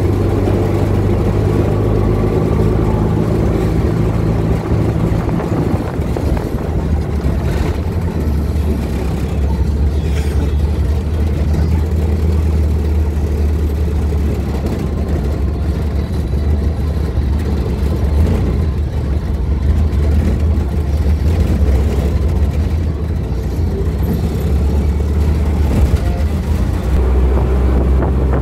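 Steady low engine drone of a moving motor vehicle, with road noise over it throughout.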